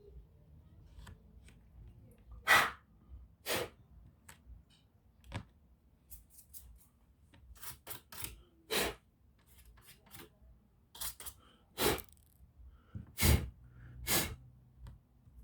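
Handling noises from work on an opened HP Pavilion 15 laptop: a string of short, sharp scraping or hissing sounds at irregular intervals, the loudest about 2.5 s in and twice near the end.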